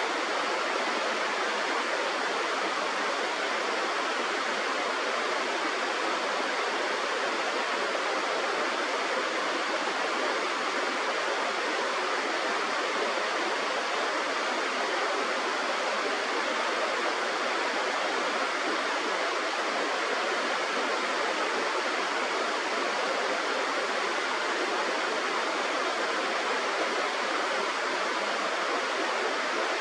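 Steady rush of flowing river water, even and unbroken throughout.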